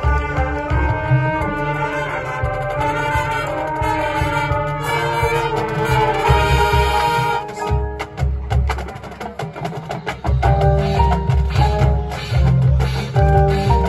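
High school marching band playing: the brass hold full chords that build and then cut off about halfway through, after which drums carry on with short brass notes over them.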